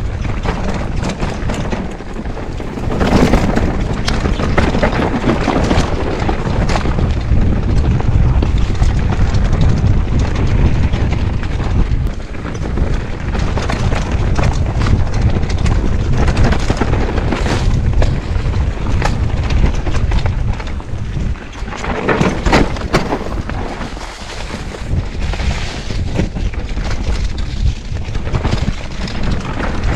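Wind buffeting the action camera's microphone as a mountain bike descends a rough dirt trail, with the tyres running over dirt and rocks and the bike knocking and rattling over the bumps.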